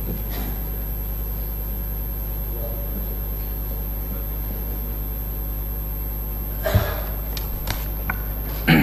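Steady low electrical hum on the assembly hall's microphone feed, with a few brief knocks and rustles near the end.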